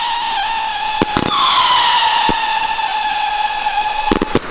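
Fireworks battery shots rising with a loud whistle that slides slowly down in pitch, restarting about a second in, overlaid with sharp bangs: two about a second in, one at about two seconds and a quick cluster near the end.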